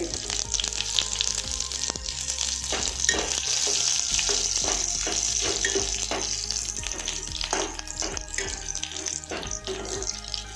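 Curry leaves crackling as they go into hot sesame oil, where mustard seeds, urad dal, fenugreek and dried red chillies are spluttering: a steady sizzle with many sharp pops throughout.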